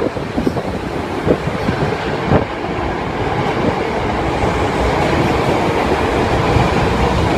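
Osaka Metro 10 series subway train pulling out of the station. Its wheels click sharply over rail joints a few times in the first couple of seconds, then a steady running noise slowly grows louder.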